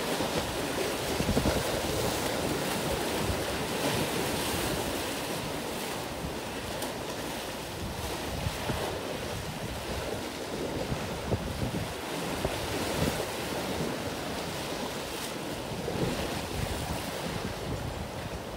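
Sea waves washing and wind buffeting the microphone in uneven gusts.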